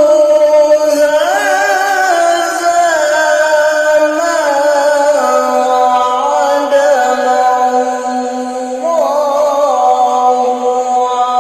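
Male Qur'an reciter holding one long melodic phrase of tilawah, unaccompanied voice sustaining notes and sliding through ornamented turns, rising in pitch about a second in and again near the nine-second mark.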